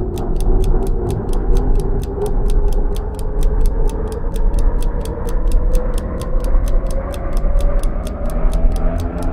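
Steady, fast clock-like ticking, about four to five ticks a second, over a low droning tone that slowly rises in pitch.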